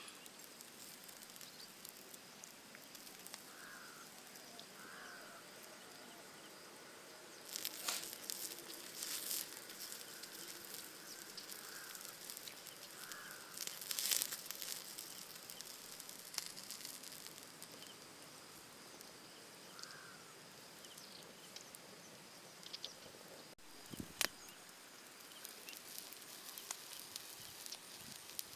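Open wood fire crackling, with clusters of louder pops about eight seconds in and around fourteen seconds, and another sharp pop near twenty-four seconds.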